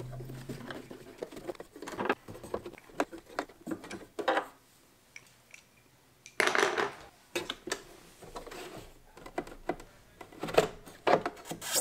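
Handling noise from taking the cover off a DeWalt 735 planer's blade assembly: scattered clicks, taps and scrapes of the parts. There is a quiet pause in the middle and louder scraping stretches about six and a half and eleven seconds in.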